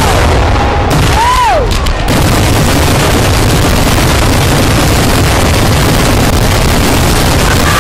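Kerala temple-festival fireworks (vedikkettu): a rapid barrage of ground-level explosions so dense that the bangs merge into one continuous loud rumble. A brief whistle rises and falls about a second in.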